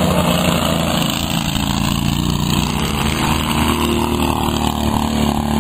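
Racing lawn mower engines running steadily, their pitch shifting and rising a little partway through as they change speed.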